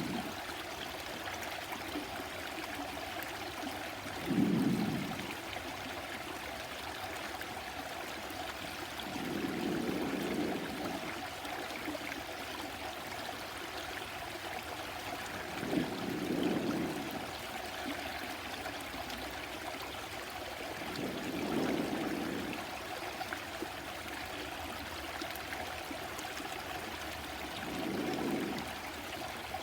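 A stream running steadily, with five soft, low swells about every six seconds, the first about four seconds in and the loudest.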